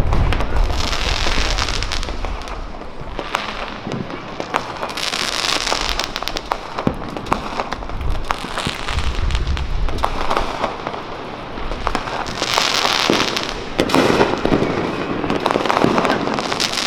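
Consumer fireworks going off around the neighbourhood: many sharp pops and cracks, with hissing bursts of crackle about a second in, around five seconds, around thirteen seconds and near the end.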